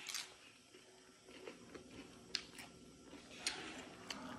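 Faint chewing of a crisp kipping rice wafer glazed with latik coconut caramel, with a handful of short, sharp crunches and mouth clicks spread through.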